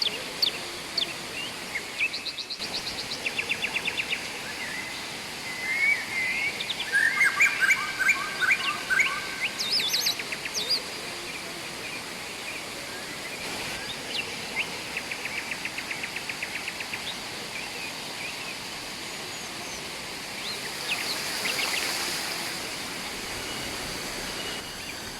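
Several birds chirping and trilling over the steady rush of flowing river water. There are fast trills of repeated notes, and a burst of busier chirping and warbling about six to ten seconds in.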